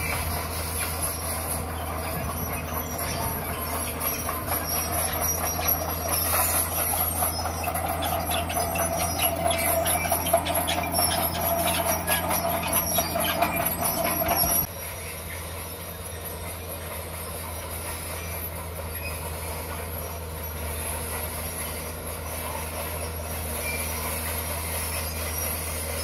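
Komatsu D41 crawler bulldozer's diesel engine running under load as it pushes dirt and stone, with its steel tracks clanking and rattling. The clatter is loudest through the first half, then drops suddenly about halfway through to a quieter, steady engine sound.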